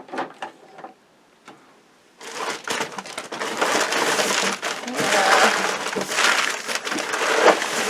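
Packing material crinkling and rustling as items are dug out of a shipping box, starting about two seconds in after a few light clicks.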